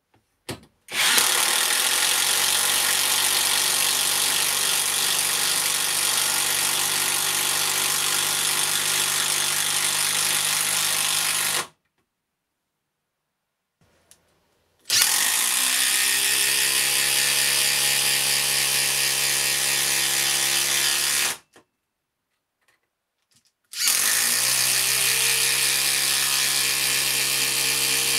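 Cordless 18V impact tool hammering 100mm galvanized batten screws into a treated timber post: three drives, the first about ten seconds long, the second about six, with short pauses between, and the third still going at the end.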